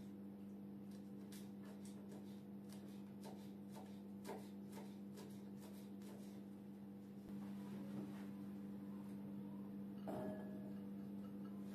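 A kitchen knife chopping pickled gherkins on a wooden cutting board, a quick run of sharp taps. About ten seconds in, boiled white beans are tipped from a dish into a glass bowl, a short clattering rush. A steady low hum runs underneath.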